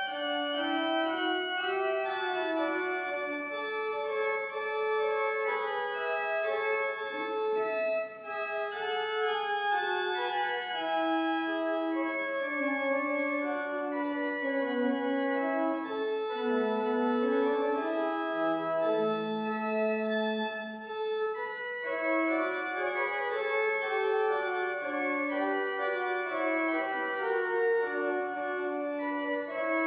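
Church pipe organ playing a polyphonic piece, several lines of notes moving at once, with short breaks between phrases about eight and twenty-one seconds in.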